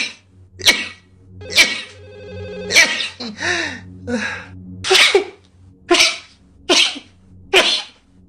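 A person sneezing in rapid succession: about ten sharp sneezes in a row, roughly one a second, each a short voiced catch followed by an explosive burst.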